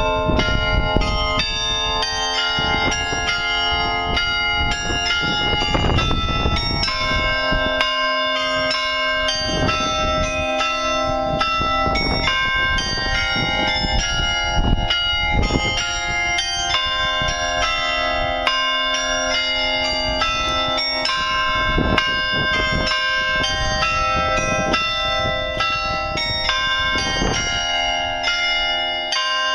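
Carillon bells of a glockenspiel clock tower playing a tune: a steady run of struck bell notes, each ringing on under the next.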